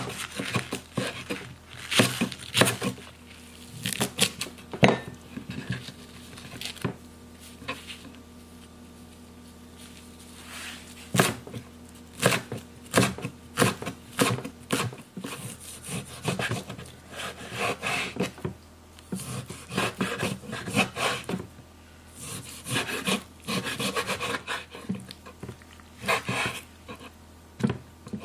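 Chef's knife cutting green onion and then perilla leaves on a wooden cutting board: a run of irregular knocks of the blade on the board, with a quieter pause of a few seconds in the middle.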